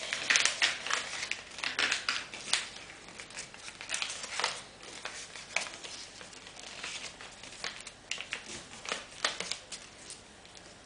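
A sheet of paper being folded and creased by hand, rustling and crinkling in quick irregular strokes, busiest in the first few seconds and thinning out towards the end.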